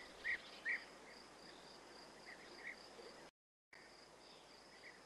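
Faint outdoor wildlife ambience: short high chirps, mostly in pairs about half a second apart, over a thin steady high trill. The sound drops out completely for a moment just past the middle.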